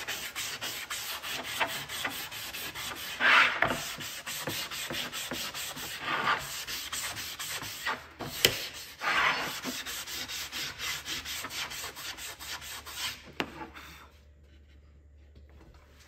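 Sanding block rubbed in quick back-and-forth strokes along the painted edge of a round wooden tray, wearing the water-based paint back to show bare wood. The rubbing stops near the end.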